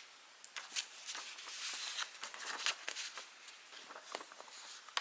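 Rustling and soft brushing of paper and cloth as a plush toy and paper timetables are handled on a bedspread, in many short irregular scuffs.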